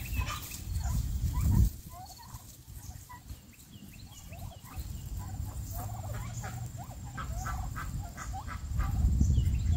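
Domestic turkeys foraging and calling with many short, chirping notes, with a quicker run of calls about six to eight seconds in. A low rumbling noise comes in near the start and again near the end.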